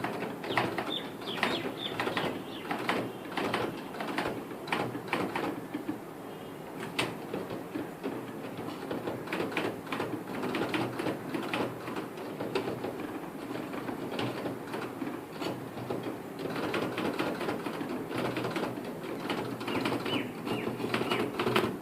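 Manual typewriter keys striking in irregular runs of sharp clicks, busy at first, thinning out in the middle, then busy again near the end.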